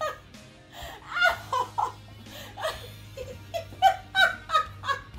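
A woman laughing in short, repeated high bursts over background music.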